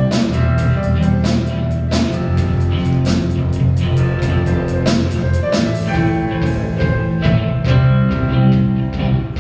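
Live rock band playing: drum kit keeping a steady beat under electric guitar, bass guitar and keyboard.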